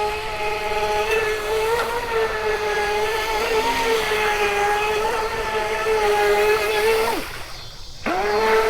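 An RC racing boat's electric motor whining at a high, steady pitch as it runs at speed. It winds down and cuts out about seven seconds in, then spins back up a second later.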